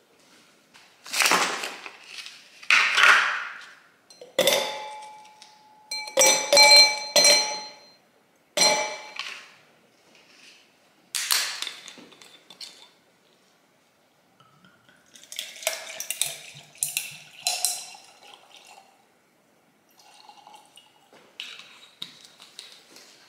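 A stemmed wine glass and a glass bottle knocking and clinking on a stone worktop, several sharp strikes with a brief ringing tone, then rosé wine poured from the small glass bottle into the wine glass, about two-thirds of the way in.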